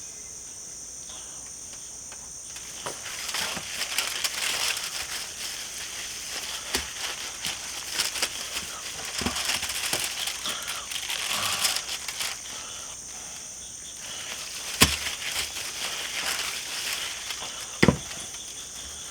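Hands spreading yellow mustard over a raw pork butt: irregular wet crackling and rustling for several seconds, then a few sharp clicks near the end. Crickets chirr steadily in the background.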